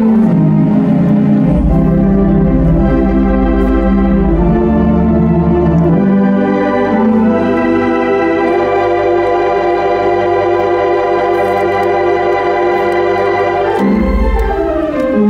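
The Byrd Theatre's Wurlitzer theatre pipe organ playing sustained chords over deep pedal bass notes. About six seconds in it settles into one long held chord, and a deep pedal note comes back near the end.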